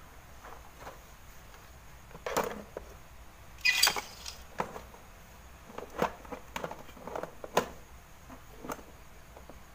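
Clicks, taps and knocks of small hard parts and tools being handled on a workbench while a TV's main board is taken out, with a louder scraping rattle about four seconds in.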